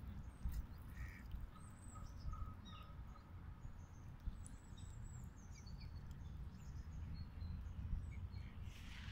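Ducks calling on the water: scattered short quacks and chirps, with a short run of repeated notes a couple of seconds in, over a low steady rumble.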